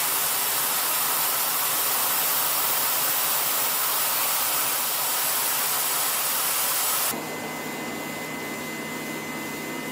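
Metal-spray (thermal spray) gun coating a worn compressor shaft, a loud steady hiss. About seven seconds in it breaks off abruptly into a quieter steady machine noise with a thin high whine.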